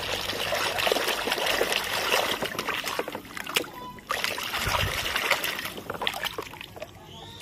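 Soapy water sloshing and splashing in a plastic basin as a hand swishes and scrubs a toy under the suds, pausing briefly about halfway and dying down near the end.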